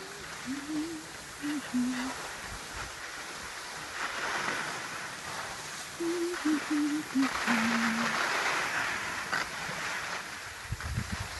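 Skis scraping and hissing over packed snow, swelling with each turn. A person hums a short tune twice, at the start and again about six seconds in.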